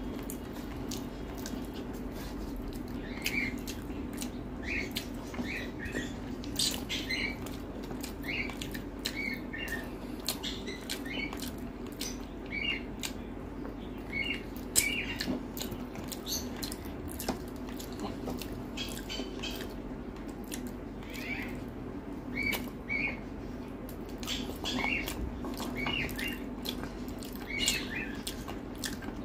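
Close-miked eating sounds: chewing and wet lip smacks, with fingers mixing rice on a steel plate. There are many short clicks and smacks, irregularly spaced, over a steady low hum.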